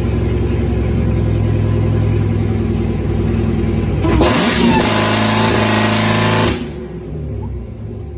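Dodge Challenger's engine idling with a lumpy rhythm, then revved hard about four seconds in for a couple of seconds before it drops back.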